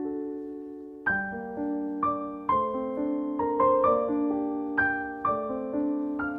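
Gentle background piano music: slow, sustained notes and chords, each struck and left to fade, with a quieter pause in the first second before the playing picks up.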